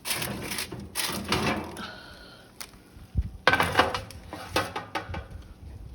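A baking pan of jalapeño poppers being taken out of the oven: the oven door opens, then metal scrapes, with a louder run of metal knocks and clatter about three and a half seconds in.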